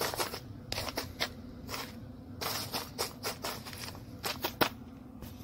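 A hand spreading roasted almonds in an aluminium foil pan: the nuts click against each other and the foil in irregular clicks, with light scraping.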